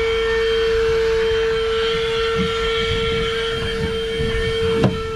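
Cheap 12-volt handheld car vacuum cleaner running with a steady whine over a low rumble, with one short knock near the end.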